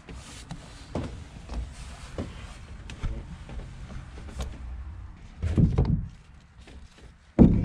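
Scraping and knocking of a wooden stick worked against the inside of a fiberglass boat hull, with rustling of handling in a cramped compartment and two louder thumps, about five and a half and seven and a half seconds in.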